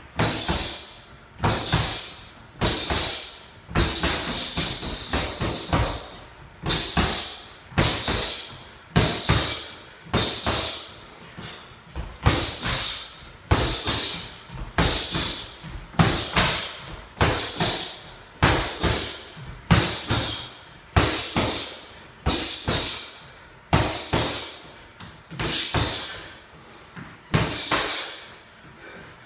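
Boxing gloves popping against hand-held focus mitts in quick combinations of two to four punches, about one combination a second. Each burst of smacks echoes briefly.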